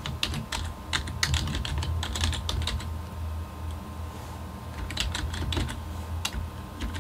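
Typing on a computer keyboard: quick runs of key clicks, with a short pause about halfway through before more keystrokes, over a steady low hum.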